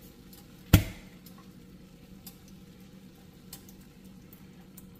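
A single sharp, loud knock about a second in, from the glass jar of curry simmer sauce being handled over the frying pan, followed by a few faint clicks.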